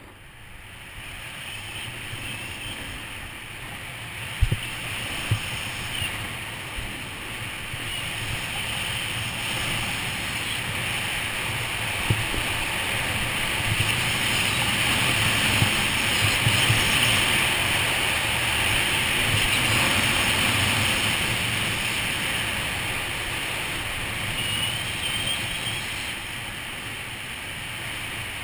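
Wind rushing over a helmet-mounted GoPro Hero2 while a snowboard slides and scrapes down groomed snow. It grows louder toward the middle and eases off near the end, with a few sharp knocks near the start.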